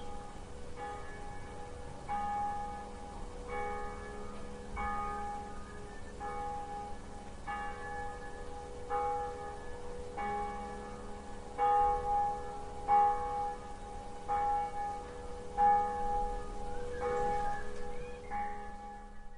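A church bell tolling slowly, one strike about every second and a third, each strike ringing on into the next. The strikes are loudest in the middle stretch.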